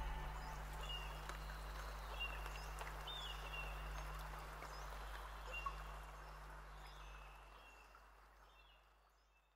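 Faint outdoor ambience with a steady low hum and scattered short, high chirps, fading away to silence near the end.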